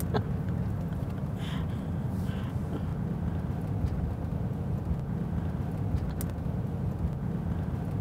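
Steady low rumble of engine and road noise inside a moving car's cabin.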